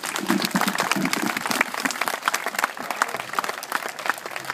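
Crowd applauding with dense, irregular hand clapping, with a few voices calling out in the first second or so.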